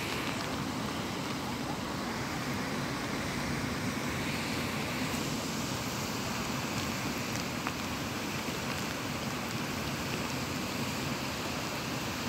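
Steady rushing of a muddy river in flood, a constant noisy roar of fast, turbulent water.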